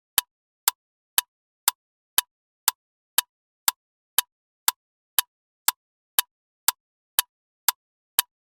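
Loud ticking clock: sharp, identical ticks exactly two a second, each a short crisp click with a slight ring, and nothing between them.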